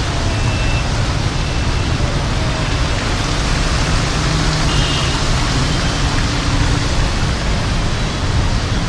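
Steady rushing hiss of a fountain's water spray, with the low rumble of street traffic around the lake beneath it.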